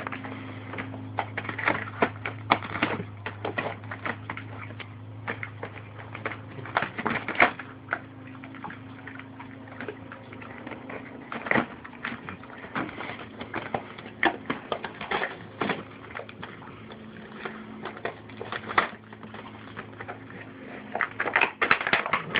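American bulldog chewing and tearing at an action figure's cardboard-and-plastic packaging: irregular crackles, crinkles and sharp clicks, with a steady low hum underneath that stops near the end.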